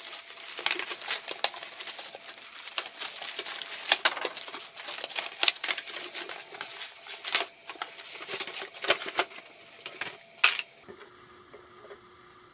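Plastic packaging crinkling and crackling in irregular bursts, with sharp clicks, as a toy set is pulled out of its box. It stops abruptly near the end.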